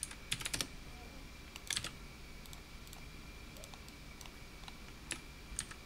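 Computer mouse and keyboard clicks: a quick cluster about a third of a second in, another just before two seconds, and two single clicks near the end. A faint steady high-pitched whine runs underneath.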